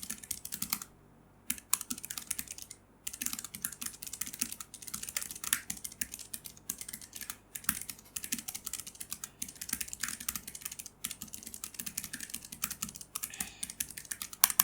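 Typing on a Keychron K3 low-profile mechanical keyboard with Keychron's optical brown switches: a fast, uneven patter of keystrokes. It breaks off briefly about a second in and again about three seconds in.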